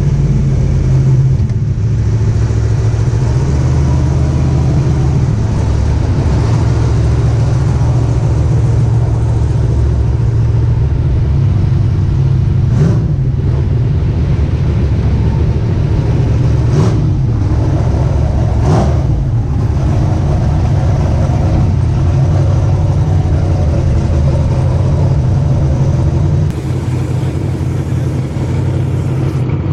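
Drag car's engine idling with a steady, loud low rumble. The rumble eases slightly a few seconds before the end.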